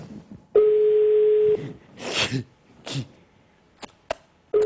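Telephone ringback tone heard through the handset: a steady tone sounding for about a second, twice, about four seconds apart, over a thin line hiss. A short breathy sound and a few small clicks fall between the two rings.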